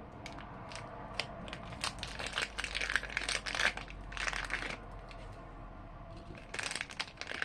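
Glossy slime being squished and stretched by hand, making a run of small clicks and crackles, busiest in the middle and again near the end.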